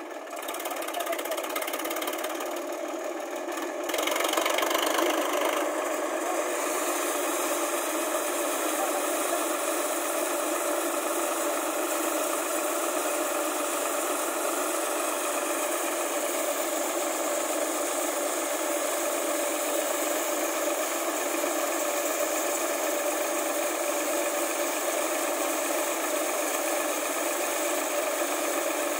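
Sonalika tractor's diesel engine running steadily, driving a thresher while chickpea plants are fed into it; engine and threshing drum together make one steady rattling mechanical noise, louder from about four seconds in.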